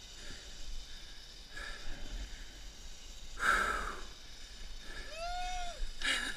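Heavy breathing and a loud exhale about halfway through, over a low wind rumble on the microphone, then a short tone rising and falling near the end.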